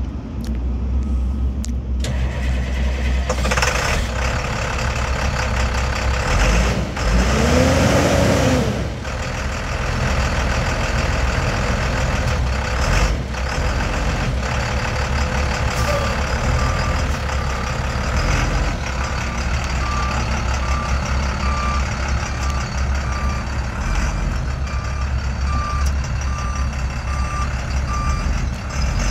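A 2005 International 4300 water truck's diesel engine runs, revving up and dropping back once about eight seconds in. From about halfway on, a reversing alarm beeps about once a second over the engine.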